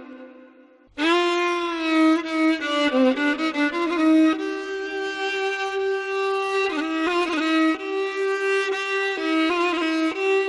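Instrumental music: a solo bowed string instrument plays a slow melody of long held notes with slides between them. It starts a new phrase after a short pause about a second in.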